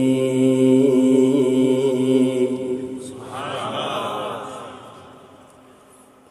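A man's voice amplified over a microphone, holding a long ornamented note of Qur'an recitation that ends after about two and a half seconds. A short swell of many voices calling out from the audience follows and fades away.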